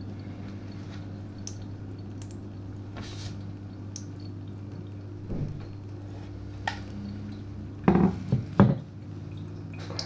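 Water leaking from a pellet hole in a plastic bottle, with faint drips over a steady low hum. About eight seconds in come a few loud clattering knocks.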